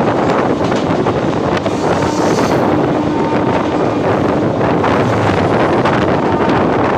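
Loud wind buffeting the microphone over the steady rumble and clatter of a passenger train running at speed, as a goods train's covered wagons rush past close alongside.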